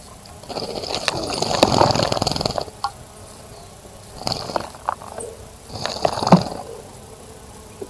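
Small bird splashing and fluttering its wings in a bird bath: three bouts of spattering water, the first and longest about half a second in, the others near the middle and past the middle.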